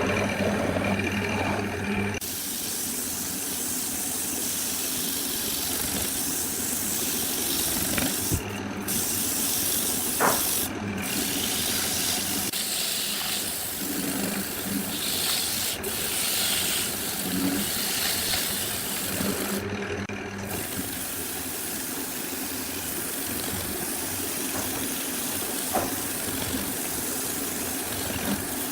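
A loud, steady hiss over a faint low hum, its highest part cutting out briefly three times.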